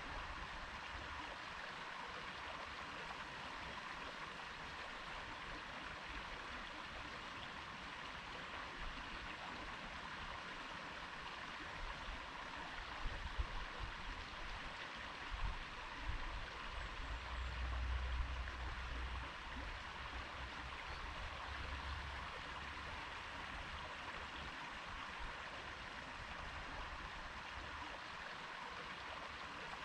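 Stream water flowing in a steady rush. A low rumble swells in and out around the middle.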